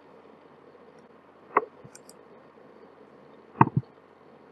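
Two short, sharp clicks about two seconds apart, the second with a smaller click just after it, over a faint steady hiss.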